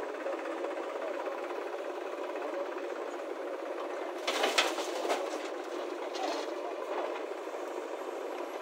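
JCB backhoe loader's diesel engine running steadily as it works, with a clattering burst and a couple of thuds about four seconds in as the bucket dumps soil into the steel tractor trolley, and a smaller clatter a second or so later.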